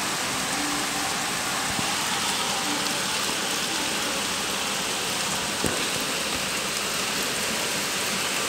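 Heavy rain falling steadily: a dense, even hiss of downpour.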